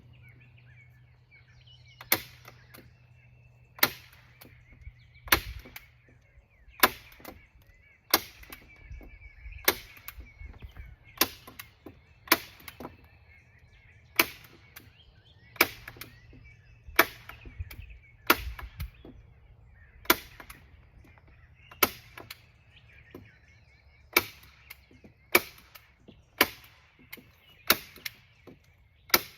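Hand staple gun firing staples one after another into the greenhouse covering, a sharp snap about every second and a half.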